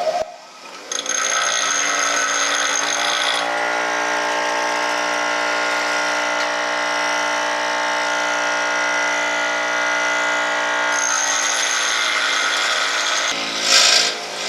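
Electric grinder running steadily, grinding some of the threads off the end of a cut length of threaded rod to leave a flat spot for welding to a plate. It starts about a second in and stops shortly before the end, followed by a couple of short sharp noises.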